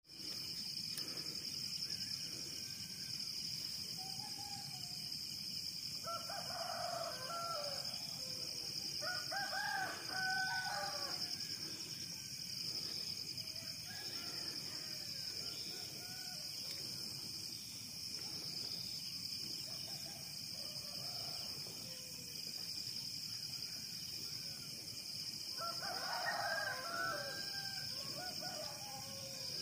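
Roosters crowing repeatedly, the loudest crows about six, nine and twenty-six seconds in with fainter ones between, over a soft, steady low sound of sea surf and a steady high-pitched drone.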